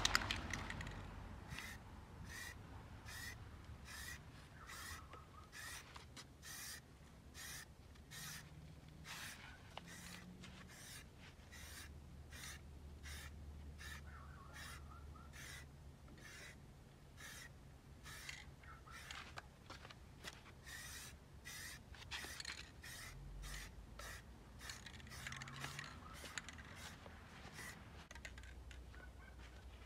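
Aerosol can of high-heat matte black spray paint, fired through a clip-on trigger handle in many short hissing bursts, about one to three a second, putting the first coat on a dirt bike exhaust pipe.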